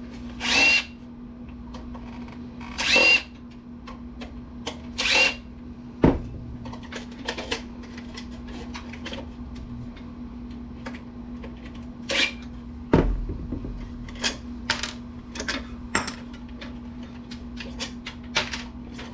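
A power drill-driver with a screwdriver bit spinning in three short bursts, backing out screws from a desktop PC case, followed by many small clicks and taps of metal parts and screws being handled, with a sharper knock about 6 seconds in and again near 13 seconds. A steady low hum runs underneath.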